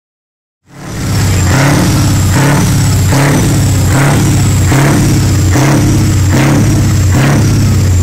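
Scania 143M 420's V8 diesel engine running loud, surging in an even rhythm about every 0.8 seconds like repeated throttle blips. It cuts in suddenly under a second in.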